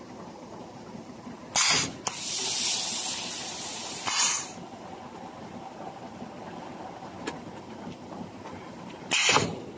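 Pneumatic valves of a round cutting press for pleated filter media venting compressed air. A short sharp hiss comes about one and a half seconds in, then a longer hiss of about two seconds, another short burst around four seconds and a last sharp hiss near the end. A steady low machine hum runs under it.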